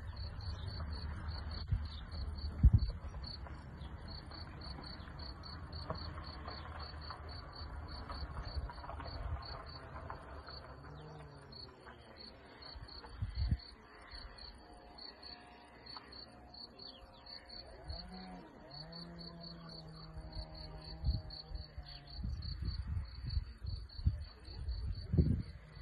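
An insect in the meadow grass chirping steadily, a long run of quick, evenly spaced high-pitched pulses at one pitch. Wind rumbles on the microphone at the start and again near the end, and a low drawn-out hum rises faintly for about four seconds past the middle.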